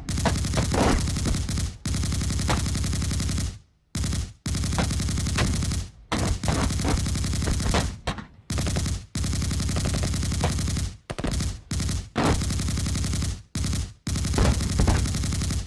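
Machine gun sound effect: rapid automatic fire in repeated bursts of about one to two seconds, each cut off by a short pause before the next.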